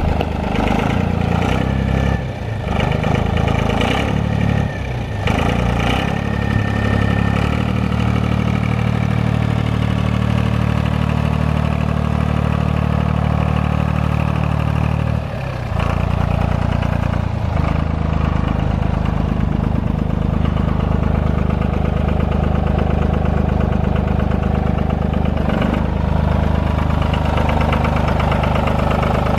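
Goldoni Maxter 60SN tractor's VM Motori 15C/3 three-cylinder diesel engine running steadily, its note dipping and shifting briefly about two, five and fifteen seconds in.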